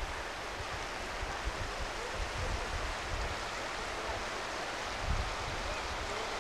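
Steady rush of a shallow stream running over gravel, with gusts of wind buffeting the microphone.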